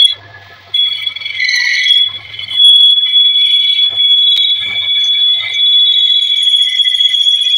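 Metal lathe's cutting tool squealing against a spinning metal sleeve as it turns the sleeve's end. The shrill squeal comes and goes at first, then holds steady from about two and a half seconds in, over a low machine hum.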